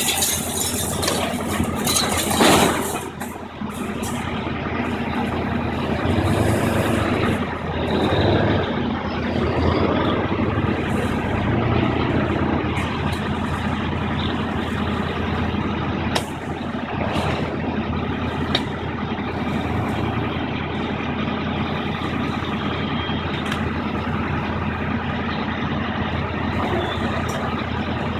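Diesel engine of a high-reach demolition excavator running steadily as it tears into a building. A loud crash of breaking, falling debris comes about two and a half seconds in, with scattered knocks and clatter afterwards.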